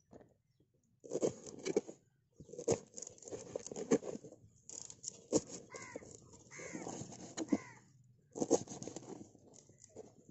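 Knife chopping fresh coriander on a wooden cutting board in quick runs of strokes. In the middle, a bird calls three times.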